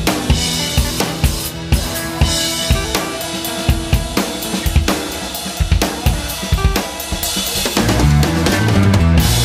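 Background music with a drum-kit beat of bass drum, snare and cymbal; the bass gets heavier near the end.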